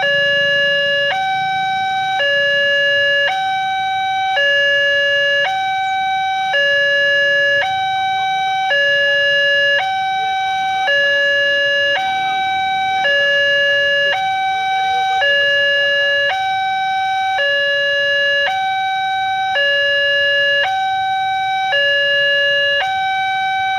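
Railway level-crossing warning alarm sounding its electronic two-tone chime, a lower and a higher note alternating about once a second, while the crossing is closed for an approaching train.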